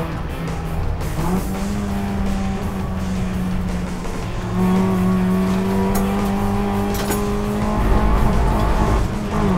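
Nissan Sentra Cup race car's 2.0-litre naturally aspirated four-cylinder engine, heard from inside the cabin, pulling at high revs on the track. Its pitch steps up about a second in, holds high and climbs slightly, then falls away sharply near the end as the driver comes off the throttle.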